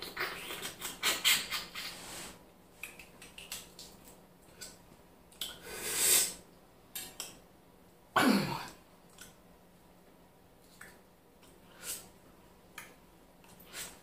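Crab legs being cracked with the teeth and sucked: scattered sharp shell clicks and cracks, with two louder sucking sounds about six and eight seconds in, the second falling in pitch.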